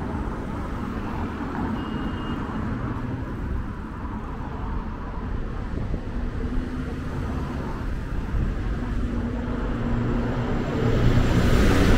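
City street traffic: road vehicles running by, with a low engine hum, and one passing close near the end, louder and hissier.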